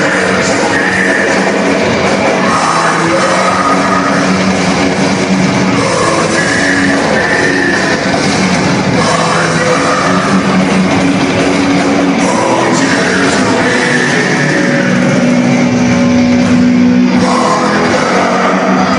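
Death metal band playing live and loud, with distorted guitars, drums and vocals.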